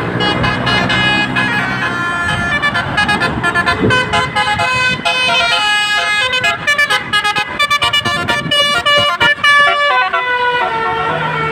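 Basuri telolet multi-tone horns on a bus playing a tune: several tones sound together and step from note to note, quickening into a run of rapid short notes in the middle. A low engine hum lies under the first couple of seconds.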